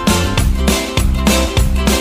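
Background music with a steady beat, about four beats a second.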